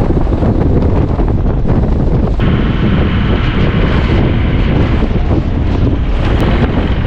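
Wind buffeting the microphone, a loud, uneven low rumble. A higher steady hiss joins about two and a half seconds in and fades out a few seconds later.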